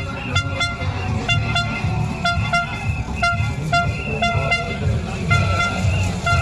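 Repeated short horn toots, one pitched note sounding again and again. Sharp knocks come between the toots, and a low rumble runs underneath.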